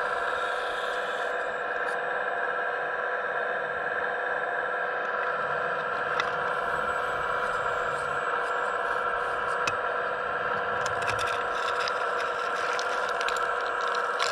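Hydraulic pump of a radio-controlled Hitachi ZX135US model excavator running with a steady whine. From about six seconds in, the bucket digs into broken rock and rubble with scattered scraping and clicking.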